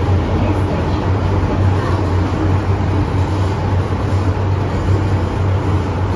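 MTR Island Line M-Train running through a tunnel, heard from inside the passenger car: a steady rumble of wheels and car body over a constant low hum.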